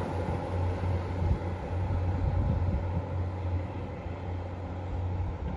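Diesel multiple-unit train running, a steady low engine drone under rushing noise that eases slightly about three seconds in.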